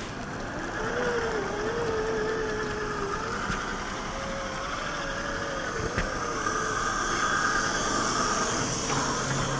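Electric motor and gear whine of an RC rock crawler, wavering in pitch as the throttle is worked, over a faint steady hiss.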